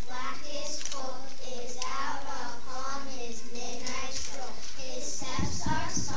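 A class of young children's voices reciting a poem together in unison.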